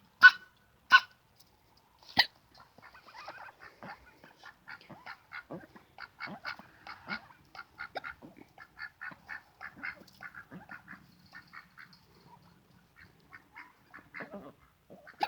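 Pekin ducks calling: three loud, sharp calls in the first two seconds, then a long run of quick, soft quacks, several a second, which thins out near the end.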